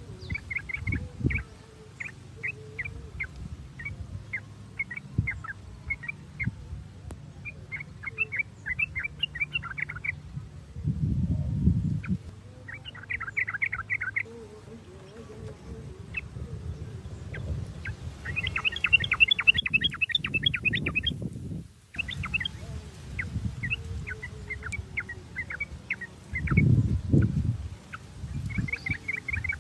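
Yellow-vented bulbuls (trucukan) calling: strings of short, sharp chirps that break into quick chattering runs a few times. There are two brief low rumbles under the calls, about 11 s and 27 s in.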